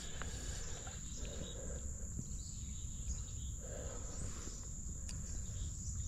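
Steady, high-pitched drone of insects singing, over a low background rumble.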